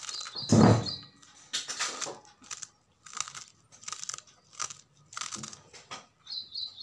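Knife cutting through crisp water spinach (kalmi saag) stems held against the thumb, short crunches at about two a second, with one louder thump about half a second in.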